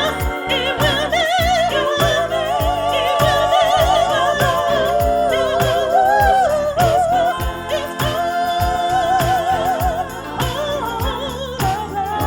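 A church song: a singer holding long notes with wide vibrato over a band accompaniment with a steady drum beat.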